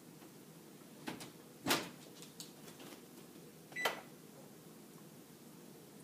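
Baking tray sliding onto a metal oven rack with a couple of clicks about a second in, then the oven door shutting with a single knock, the loudest sound. A second clack with a brief beep follows near four seconds in.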